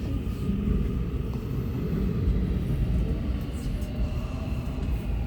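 Seoul Subway Line 7 train running between stations, a steady low rumble of wheels and running gear heard from inside the car.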